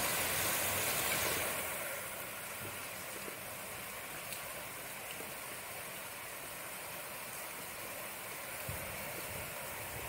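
Steady rain falling, an even hiss. It is louder and brighter for the first second or so, then settles to a constant level.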